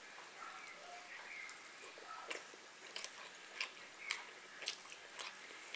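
Close-up eating sounds: a person chewing food with their mouth near the microphone, wet mouth clicks falling into a steady chewing rhythm of roughly two a second from about two seconds in.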